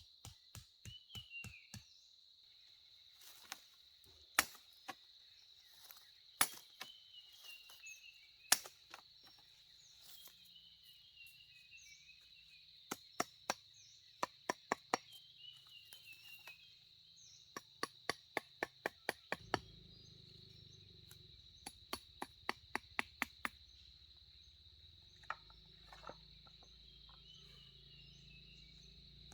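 Sharp chopping strikes in quick irregular runs, about five a second at their fastest, over a steady high-pitched insect drone and short bird chirps.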